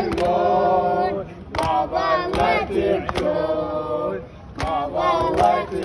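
A young boy's voice chanting an Arabic elegy poem in long, wavering sung phrases, with short breaks about a second in and about four seconds in.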